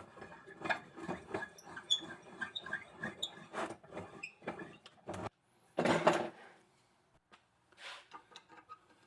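Metal parts of a drill press being worked loose by hand: scattered clicks, knocks and short squeaks, with a louder half-second rush of noise about six seconds in.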